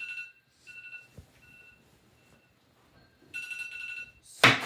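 Electronic alarm beeping in fast pulses on two high tones. It sounds in bursts, loud, then fainter, then loud again. Near the end there is a sudden loud smack.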